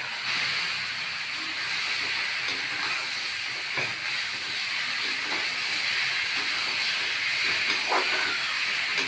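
Boiled taro pieces and chopped tomatoes sizzling steadily in hot oil in an iron kadai, stirred with a spatula, with a few faint scrapes of the spatula against the pan. A short knock at the very start as the taro goes in.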